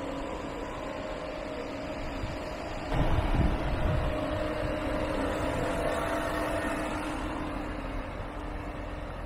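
Mercedes-AMG GLE 43's 3.0-litre twin-turbo V6 idling steadily, heard with the hood open. It is louder, with more low rumble, for a second or two about three seconds in.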